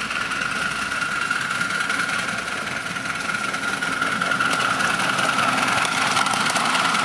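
Miniature steam locomotive hauling a passenger train around a curve, growing louder as it approaches from about four seconds in. A steady high-pitched note runs through it.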